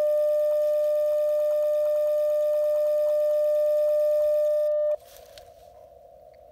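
Icom IC-705 transceiver sounding a steady single-pitch CW tone while it sends a tuning carrier for the mAT-705Plus automatic antenna tuner to match the antenna on 6 meters. The tone cuts off suddenly about five seconds in as the tune finishes, leaving faint receiver hiss.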